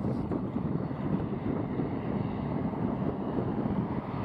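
Wind buffeting the microphone over the low rumble of a De Havilland Dash 8 Q400's turboprop engines turning its propellers at taxi power.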